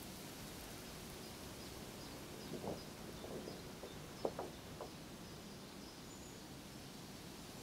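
Quiet outdoor countryside ambience: a steady low hiss with faint, high, repeated chirping, and a few soft short sounds in the middle, the loudest about halfway through.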